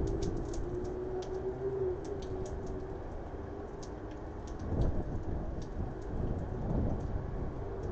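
Thunderstorm ambience: a low rumble that swells about five seconds in and again near seven seconds, with scattered sharp ticks over it.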